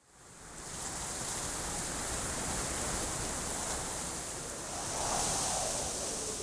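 Steady downpour of rain with wind, fading in over the first second and swelling briefly about five seconds in, as a gust might.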